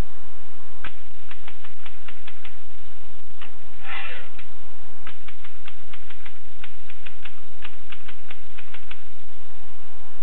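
Keys of a Groma Gromina manual typewriter being struck in an irregular run of sharp clacks, with one short rasping sound about four seconds in.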